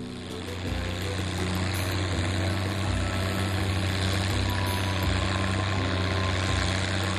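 Farm tractor engine running steadily at low speed, a deep even drone that grows a little louder in the first second.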